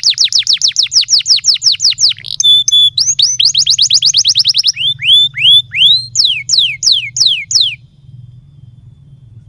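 Domestic canary singing: fast rolling trills of repeated downward-sweeping notes, a brief run of short steady notes, another fast trill, then slower separate rising and falling whistles. The song stops about eight seconds in, leaving a faint low hum.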